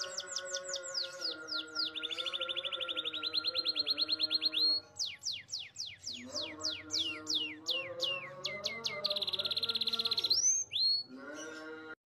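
Domestic canary singing a rolling song: quick runs of descending whistled notes broken by buzzing trills. One trill runs from about two to four and a half seconds in, and another from about nine to ten and a half seconds.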